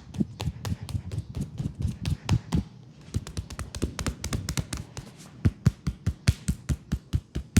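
Fast percussive massage strikes on a leg, a rapid patter of taps about five a second. They turn sharper, louder and more even in the second half.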